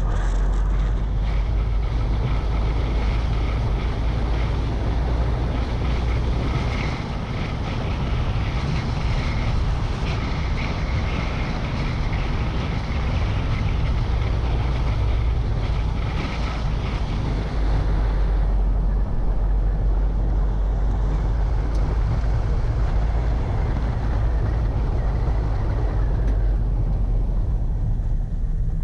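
Car driving along a rough, narrow lane, heard from a camera on its bonnet: a steady low rumble of wind on the microphone with engine and tyre noise. The higher hiss drops away about two-thirds of the way through.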